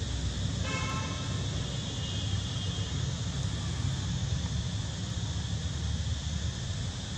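Steady low rumble of outdoor background noise, with a brief high-pitched tone about a second in.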